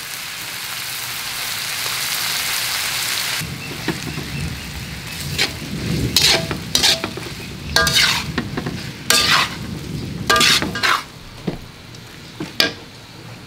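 Chopped pork sizzling in a hot metal wok, then a spatula stirring and scraping through it, with several sharp ringing scrapes against the pan.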